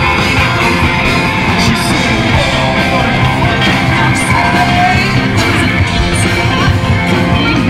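Loud rock music with singing, played over a stadium's public-address system.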